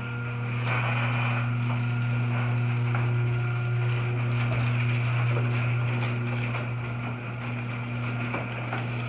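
LiftMaster 8365 chain-drive garage door opener running the door down: a steady motor hum with the rattle and rush of the chain and the door rolling in its track, louder from about a second in to about two-thirds of the way through.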